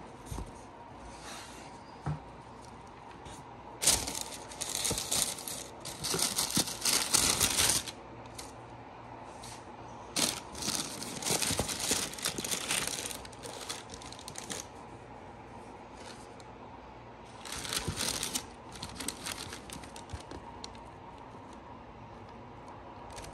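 Tissue paper rustling and crinkling in three bursts as it is pulled back from a sneaker in its shoebox, with a few light knocks from handling the cardboard box.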